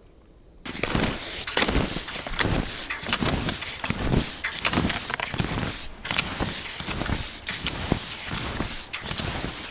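Touring skis and ski poles crunching over snow in a steady stride, about two strokes a second, starting suddenly about half a second in.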